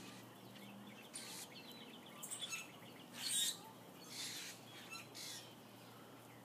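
A jacket zipper being worked, making several short rasping bursts about a second apart, with faint bird chirps in the background.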